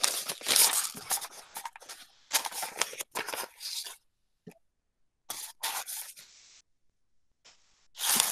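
Papers rustling and being shuffled by hand in a series of short scrapes and crinkles, with a couple of quiet pauses.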